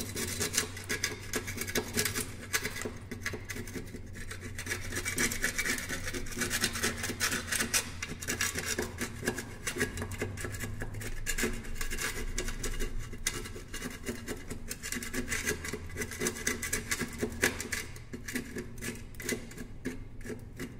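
Metal putty knife scraping flaking paint off a plastered wall in quick, short strokes: a continuous dry rasping.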